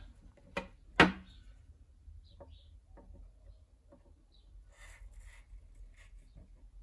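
Handling of multimeter test probes on the cell's electrode: a sharp click about a second in, then faint scattered taps and light rustling.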